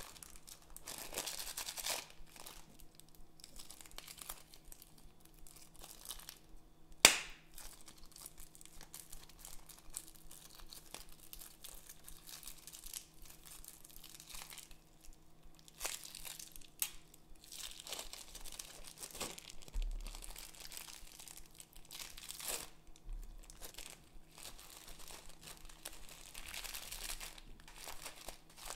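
Thin plastic bags crinkling and rustling as they are handled and torn open by hand, in repeated stretches, with a few sharp snaps; the loudest is a single sharp snap about seven seconds in.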